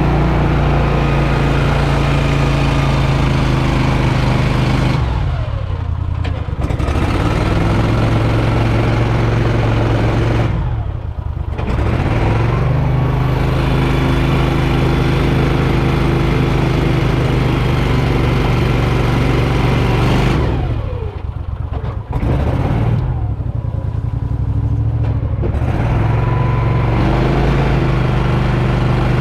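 Mud boat's motor running at high revs, easing off and climbing back up three times.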